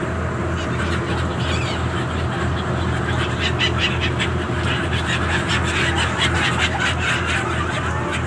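A large flock of ducks quacking together in a dense, overlapping chorus, over a steady low hum.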